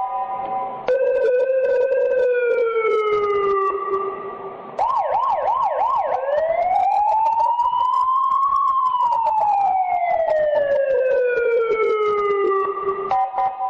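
Police patrol car siren cycling through its tones. It opens on a steady chord of several notes, then a slow falling wail. About five seconds in there is a short run of fast up-and-down sweeps, then a slow rise and a long fall, and the steady chord returns near the end.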